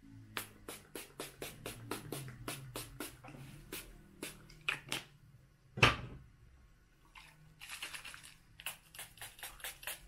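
A small cosmetic spray bottle pumped over and over, each press a short sharp hiss, about three or four a second, with one longer hiss about eight seconds in. A single louder knock comes about six seconds in.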